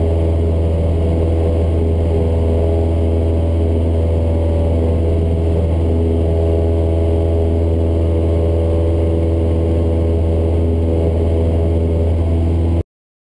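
Cessna 172's piston engine and propeller running steadily at takeoff power as the plane climbs out, heard from inside the cabin as a loud, even drone. It cuts off abruptly near the end.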